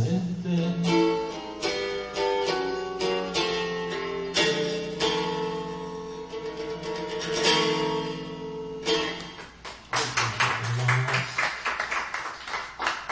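Small acoustic guitar played solo: a picked melodic passage of single notes over held bass notes, then a run of quick strums in the last few seconds, as the song's instrumental ending.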